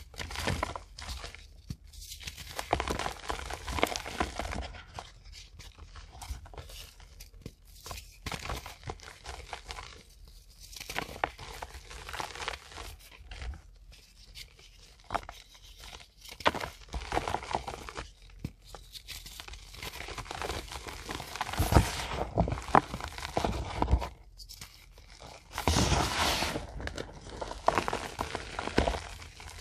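Soft reformed gym chalk blocks crushed and crumbled in the hands: irregular bursts of crunching and powdery crumbling, with the loudest crunches about three quarters of the way through and again near the end.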